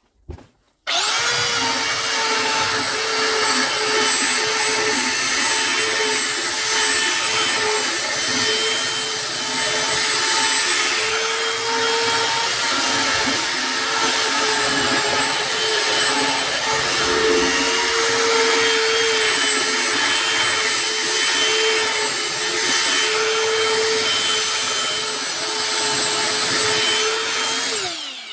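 Electric power sander starting about a second in and running steadily with a humming whine on a wooden tabletop, its pitch wavering slightly as it is pressed on the wood. It is switched off near the end, the whine falling as it spins down.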